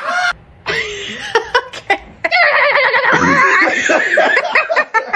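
A person laughing, with a loud, long stretch of high, wavering laughter in the second half.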